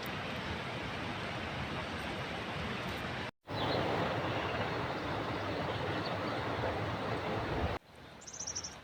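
Steady outdoor rushing noise that cuts out for a moment about a third of the way in and drops away near the end. There, a bird gives a short, rapid, high-pitched trill.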